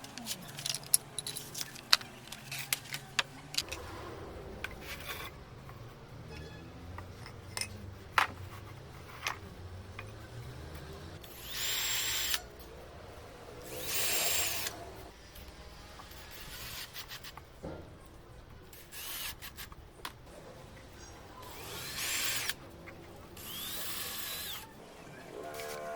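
Power drill running in four short bursts of about a second each, between scattered clicks and knocks of handling wood.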